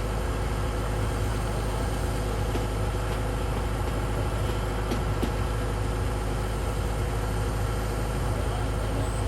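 Rice combine harvester running steadily, its engine and machinery making an even mechanical drone with no change in pace.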